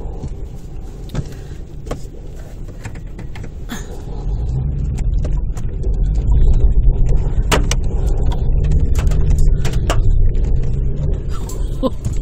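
Car engine and tyres labouring through deep snow as the car pushes into a snow-covered driveway, a low rumble that grows louder about four seconds in, with scattered sharp clicks and knocks.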